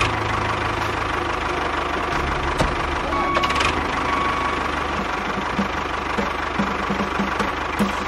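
Engine running steadily with a fast, even low chug, like a tractor's diesel idling.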